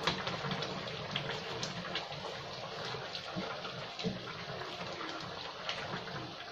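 Thick tomato sauce with meatballs bubbling in a frying pan, with small pops scattered through it, while a wooden spoon stirs and knocks against the pan.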